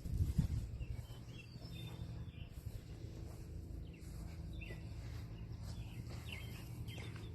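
Outdoor ambience: short faint bird chirps over a steady low rumble, with a few low knocks right at the start.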